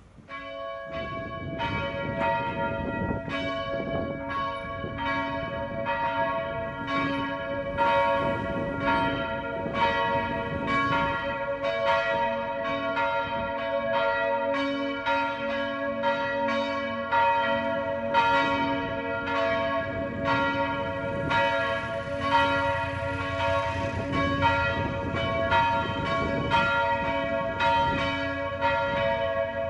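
Church bells ringing a peal: several bells struck again and again, their ringing tones overlapping, starting about half a second in.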